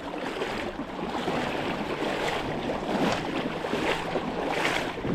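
Creek water rushing, a steady noisy rush that swells and eases irregularly.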